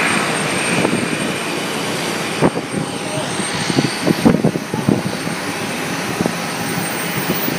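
Airliner jet engines heard across an airport apron: a steady rushing whine and hiss, brightest in the first second or so. From about two and a half seconds in, irregular short thumps sit on top of it.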